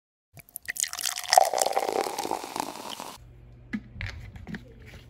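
Homemade vinegar-and-water produce wash being poured from a bowl through a plastic funnel into a plastic spray bottle, splashing for about three seconds. After the pour stops, a few light knocks of the plastic bottle and funnel being handled.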